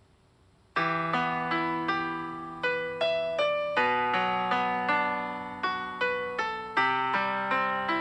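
Near silence, then under a second in, slow background piano music starts: single struck notes that ring and fade over held low notes.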